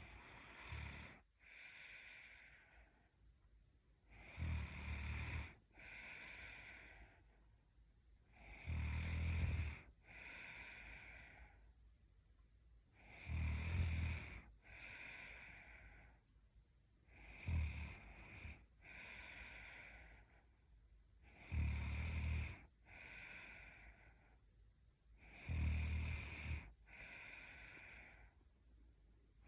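A woman snoring in her sleep: a loud snore about every four seconds, seven in all, each followed by a softer breath.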